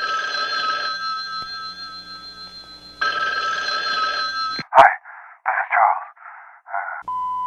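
Telephone bell ringing, cut off by a sharp click a little over four and a half seconds in. A run of about five short muffled bursts follows, then a steady beep starts near the end.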